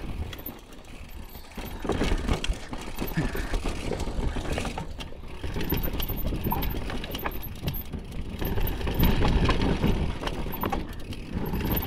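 Downhill mountain bike descending a rocky trail: tyres crunching over rock and dirt, with frequent clicks and knocks as the bike rattles over the bumps, over a steady low rumble.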